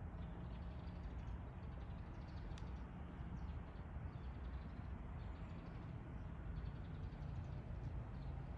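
Outdoor ambience: a steady low rumble with faint, scattered bird chirps and one sharp click about two and a half seconds in.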